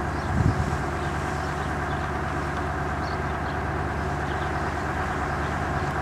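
Strong wind blowing on the microphone and through the trees: a steady rushing rumble, with a low gust about half a second in.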